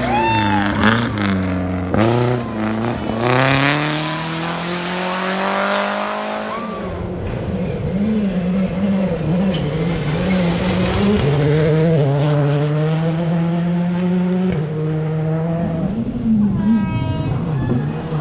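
Rally car engines at full effort: one car revs hard and shifts up twice, then its pitch climbs steadily as it accelerates away. About seven seconds in the sound cuts to another rally car whose engine rises and falls as it is driven through the stage.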